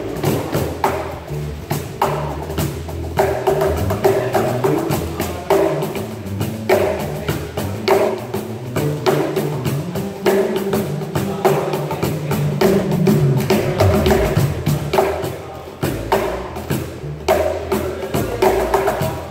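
Two BangBox cajons slapped by hand in a busy, continuous groove of sharp wooden strikes and deeper bass tones, played together with an electric bass line.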